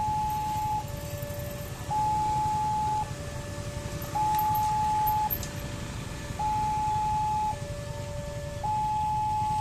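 Railway level-crossing warning alarm sounding, switching steadily between a high and a lower tone about every second to warn that a train is coming. A low rumble of waiting motorcycles and traffic runs underneath.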